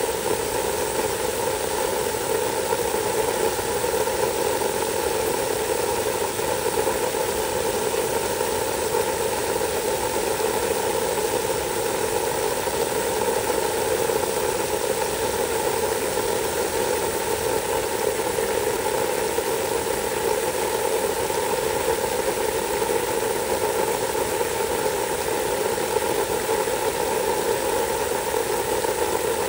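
Water spraying steadily onto wet wood mulch, with a constant machine-like drone under the hiss that never changes.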